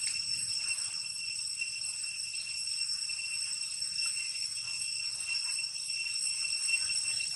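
Steady high-pitched insect chorus ringing without a break, a shimmering drone typical of cicadas in tropical forest.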